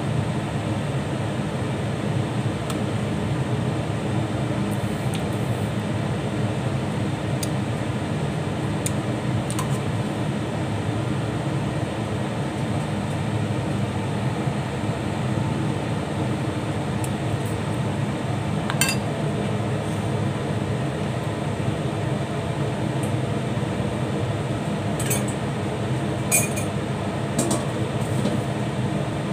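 Thick curry simmering in a stainless-steel pan: a steady bubbling hiss, with a few sharp clinks near the end.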